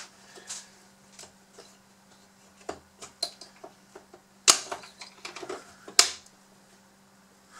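Hard plastic parts of a Bruder CAT D11 toy bulldozer clicking as snap-fit mushroom-head pegs and latches are levered loose by hand. Several light clicks, and two loud sharp snaps about halfway through and again a second and a half later.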